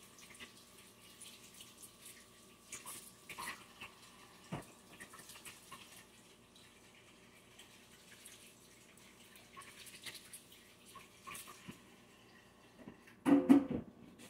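Faint running water from a tap as hands are washed at a sink, with a few small knocks and drips. A brief, louder sound comes about a second before the end.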